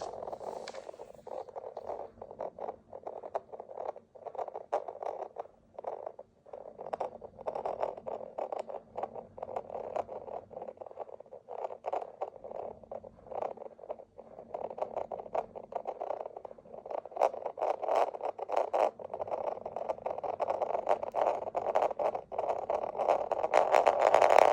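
Homemade acorn tops spinning on a hard surface, a scraping rattle full of small clicks. It comes in uneven spells with short breaks, as the tops are spun again and again.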